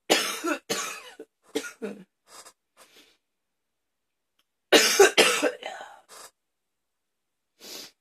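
A woman coughing hard in two fits: a run of five or six coughs that trail off over the first three seconds, then another burst of hard coughs about five seconds in.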